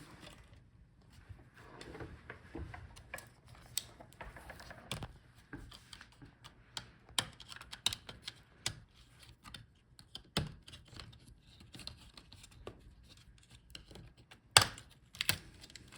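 Scattered small clicks and taps of tools and fingers on a laptop's internals as the cover over the memory is taken off, with one sharper click near the end.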